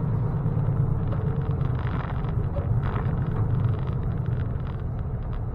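Semi truck's diesel engine running with a steady low rumble, heard from inside the cab as the truck rolls slowly through a turn.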